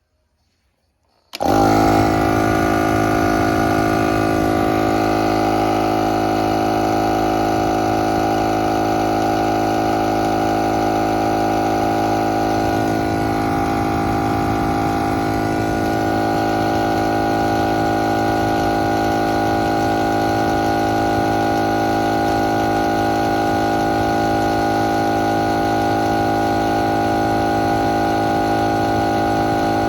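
Standard-pressure air compressor starting up suddenly about a second and a half in, then running steadily at an even pitch.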